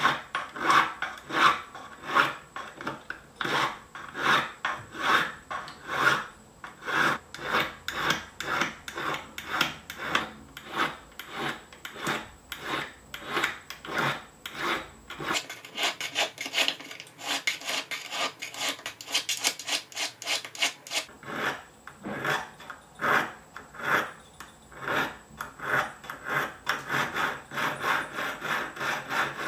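A flat hand file scraping back and forth across the edge of a silver spoon's bowl tip, held against a wooden bench pin, in repeated strokes about two a second. Midway there is a stretch of faster, brighter strokes. The damaged, dented tip is being filed back into shape.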